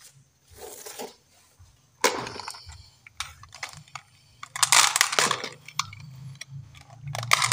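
Glass marbles rattling and clinking inside the plastic box of a toy garbage truck as it is picked up and turned over, in several short bursts, with knocks of plastic and wood being handled.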